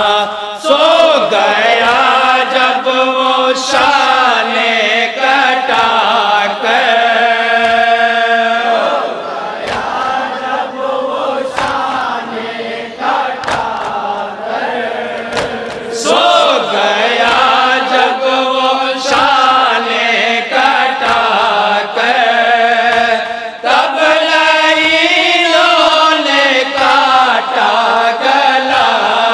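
Group of men reciting a noha, a Shia mourning lament, in unison into microphones, their voices carried over a sound system. The recitation is quieter for a stretch in the middle, then rises again.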